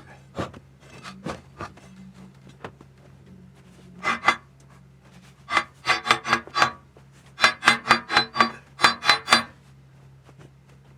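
Rapid back-and-forth scraping strokes, about four to five a second, in three bursts that grow longer: two strokes, then about five, then about eight. Each stroke has a slight ringing edge.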